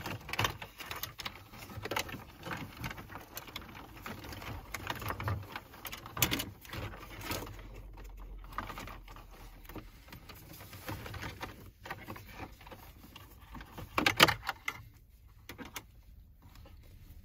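Plastic wiring-harness connectors and cables being handled and plugged together behind a car dashboard: rustling with scattered clicks, and a louder run of clicks late on.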